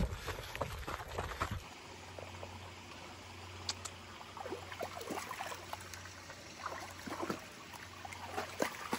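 Footsteps and rustling of a hiker on a trail for the first second and a half. Then a shallow creek trickles over rocks while a dog wades through it, with scattered small splashes.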